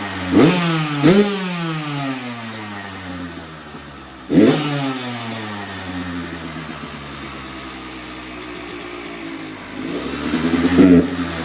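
2021 Kawasaki KX85's 85 cc two-stroke single-cylinder engine running with the choke off after warming up, its throttle blipped: two quick revs near the start, one about four seconds in, and more near the end. Between blips the revs fall slowly back toward idle.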